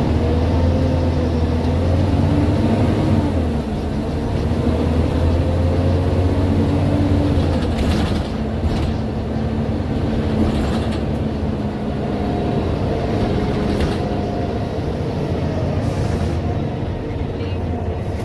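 Scania OmniDekka double-decker bus under way, heard inside on the upper deck: a steady low engine drone whose pitch rises and falls as the bus accelerates and changes gear, with a few brief sharper noises over it.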